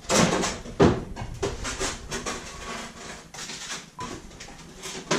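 Kitchen clatter: a run of knocks and rattles from things being handled and set down, the loudest at the very start and just under a second in.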